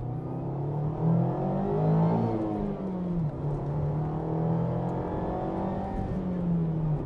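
Mazda Roadster's 1.5-litre inline-four engine under way: the revs climb over the first two seconds or so, fall back, then hold steady.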